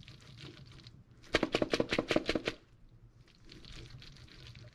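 Stainless steel strainer full of cooked macaroni shaken hard over a sink to drain off the last water: a quick run of rattling knocks, about ten a second, lasting a little over a second near the middle.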